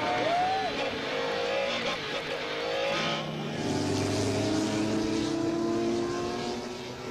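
Sports-prototype race car engines running at speed on track. The engine note wavers for the first few seconds, then settles to a steadier, lower note from about halfway.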